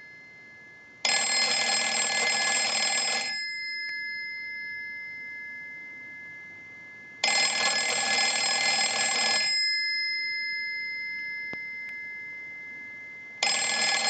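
Northern Electric rotary dial telephone's bell ringing on a test ring cycle, which shows the ringer works. It gives three rings of a little over two seconds each, about six seconds apart, and the third starts near the end.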